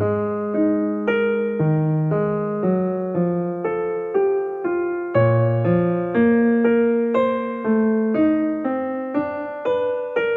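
Piano music: a calm melody of struck notes, about two a second, each fading away, over lower held bass notes.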